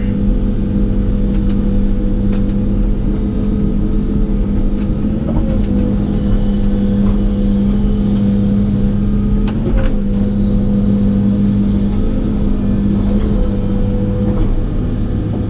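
Excavator's diesel engine running steadily at a constant pitch, with a few faint knocks about five and ten seconds in.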